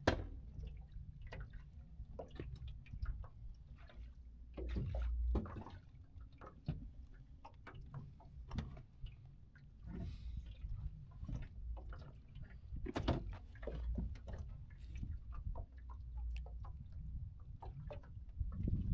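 Water lapping and sloshing against the hull of a small fishing boat, with a fluctuating wind rumble on the microphone. Scattered knocks and clicks come from handling the landing net, the fish and the tackle.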